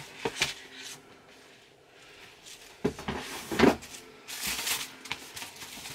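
Cardboard Air Jordan 4 shoe box being handled and its lid opened: a few knocks and thumps, the loudest about three and a half seconds in, then tissue paper inside rustling near the end.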